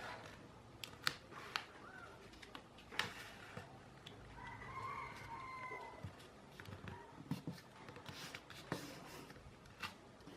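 A rooster crows once in the background, starting about four seconds in, among scattered sharp clicks and rustles of a sheet of paper being handled and creased.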